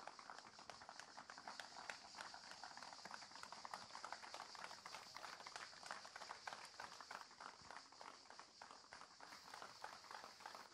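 Faint, steady applause from an audience, many quick hand claps running together, with a steady high-pitched hiss underneath.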